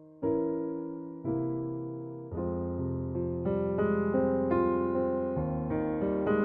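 Background piano music: slow struck chords about once a second, each fading, then quicker notes over a bass line from about two seconds in.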